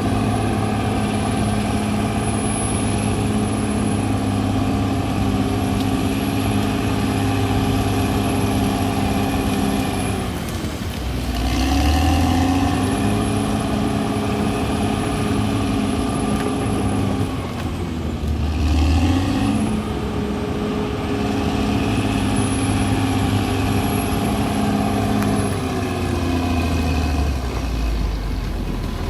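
CAT D6R XL bulldozer's diesel engine running hard and steadily; three times its pitch drops, with a heavier low rumble, and then climbs back.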